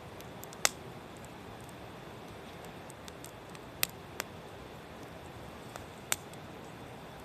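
Small wood fire crackling: a steady hiss broken by four sharp pops, the loudest about a second in.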